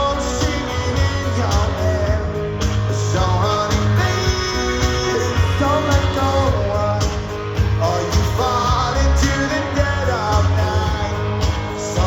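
Live rock band playing a song: a male lead vocal over electric guitars, bass and drums.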